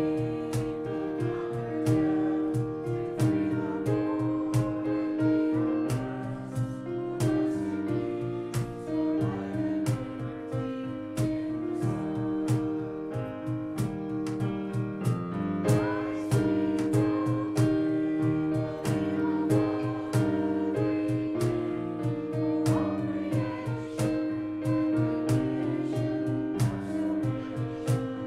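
Worship band playing a hymn, with singing over keyboard and guitar and a steady beat.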